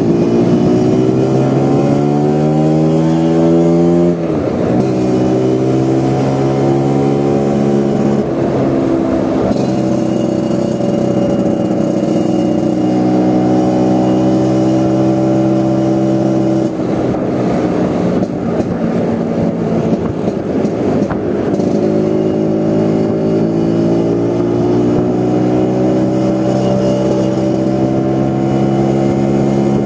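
Vespa scooter engine running while ridden, its pitch climbing for about four seconds as it accelerates, dropping sharply at a gear change, then climbing again and settling into a steady cruise, with another drop and pick-up about two-thirds of the way through.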